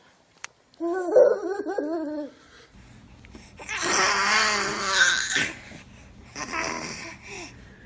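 A baby vocalizing in three bursts: a short pitched babble about a second in, then a longer, louder, rougher cry-like sound around the middle, and a shorter one near the end.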